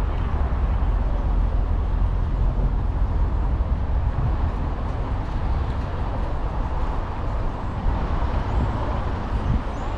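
Steady wind rumble on a bike-mounted GoPro's microphone while cycling, mixed with road traffic noise.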